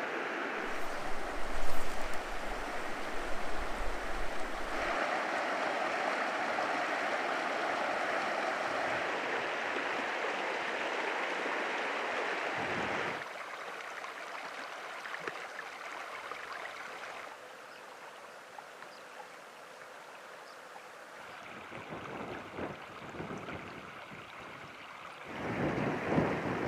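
Shallow mountain creek running over rocks and gravel: a steady rush of water that drops in level about thirteen seconds in, drops again a few seconds later, and swells again near the end. Low gusts of wind hit the microphone in the first few seconds.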